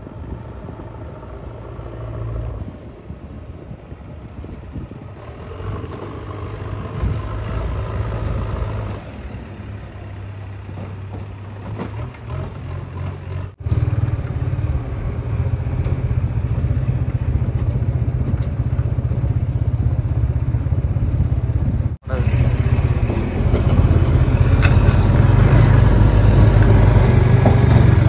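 JCB 3DX backhoe loader's diesel engine running steadily as the machine drives along a dirt track. It is distant at first, then much louder and closer from about halfway through, with two brief cut-outs.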